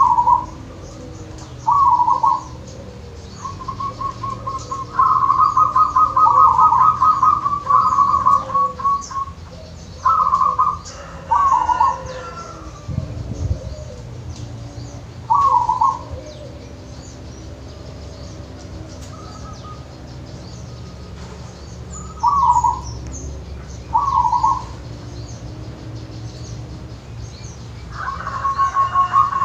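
Zebra dove (perkutut) cooing: short separate coos every few seconds, with a long run of rapid staccato notes about four seconds in and another starting near the end, over a steady low rumble.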